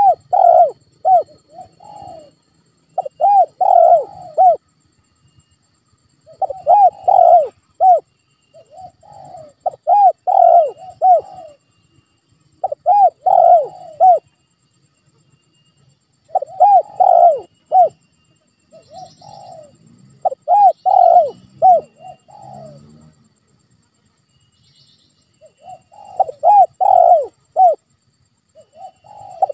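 Spotted dove cooing: a run of phrases, each of several short coos that rise and fall, repeated about every three seconds, with a longer pause near the end.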